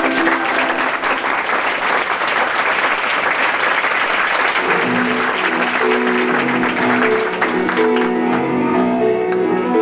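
Audience applauding, the dense clapping thinning out about halfway through as the next piece of music, with plucked guitar notes, starts up.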